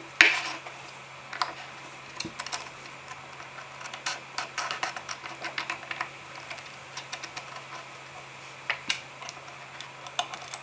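Irregular light clicks and taps of small plywood pieces being handled and knocked together, with one sharper knock just after the start.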